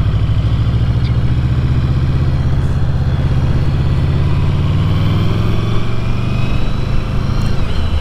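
Yamaha VMAX 1700's V4 engine running steadily at low road speed, pulling gently as the bike picks up speed, its low note rising slightly about halfway through.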